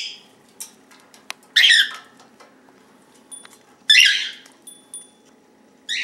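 African grey parrot giving two short, harsh, high-pitched squawks, about a second and a half in and again about four seconds in, with a few faint clicks between them.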